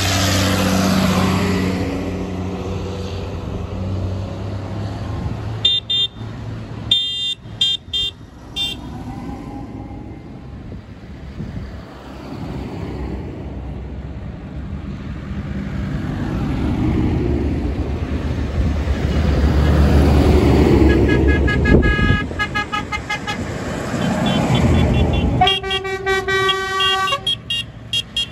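Farm tractors driving past one after another, their diesel engines rising as each one nears and fading as it goes by: a blue Ford tractor at first, a John Deere near the end. Short horn toots sound in a quick run about a quarter of the way in, and again several times near the end.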